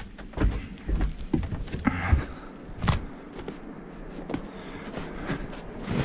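Irregular thuds and knocks a second or so apart, the kind made by footsteps and handling as people move about.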